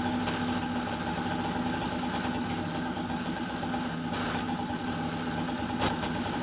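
Small two-stroke motorized-bicycle kit engine idling steadily, with a sharp knock near the end.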